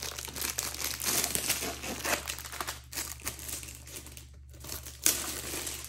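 Clear plastic wrapping crinkling as it is handled and pulled off a rolled diamond-painting canvas, with a sharp, louder rustle about five seconds in.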